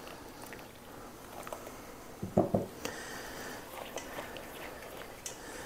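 Quiet kitchen handling: a silicone spatula stirring hot milk in a saucepan, then moving into a stainless steel bowl of egg yolks, with light scrapes and clicks. Two dull knocks come about two and a half seconds in.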